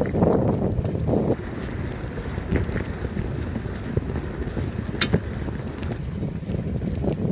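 Bicycle rolling over a rough asphalt path: a steady tyre rumble with irregular rattles and clicks, wind buffeting the microphone, and one sharp click about five seconds in. The rumble is louder for the first second and a half.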